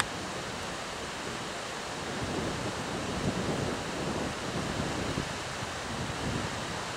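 Wind on the microphone: a steady hiss with low, uneven buffeting gusts from about two seconds in.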